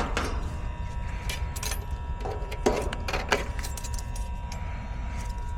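Scattered light clicks and metallic clinks of tools and parts being handled while a replacement run capacitor is fitted into an air conditioner condenser unit, over a steady low rumble.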